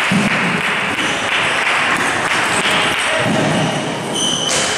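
Busy table tennis hall din: a steady wash of voices and play from neighbouring tables, with faint ball clicks. A brief high squeak sounds about four seconds in.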